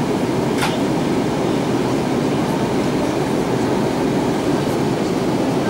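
Steady cabin noise inside an Airbus A320-232 in flight: the even drone of its IAE V2500 turbofan engines and the airflow past the fuselage. A single short click is heard about half a second in.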